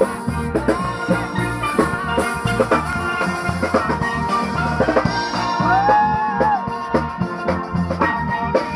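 Live steel band playing an upbeat tune: several steel pans struck in a quick rhythm over a drum kit.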